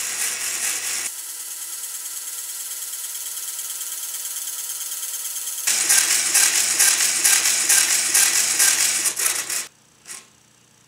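LEGO electric motors driving pneumatic pumps in a LEGO Mindstorms NXT compressor, running with a fast mechanical rattle. The rattle drops to a quieter whine about a second in, returns loud just before six seconds, then cuts off suddenly near the end, followed by one short sound.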